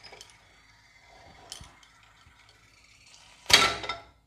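Pressure cooker lid being worked loose by its handle after cooking: a few faint metal clicks, then near the end one sudden loud clack that dies away within half a second as the lid comes free.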